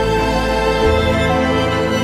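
Background music: slow, sad-sounding soundtrack with held notes over a changing bass line.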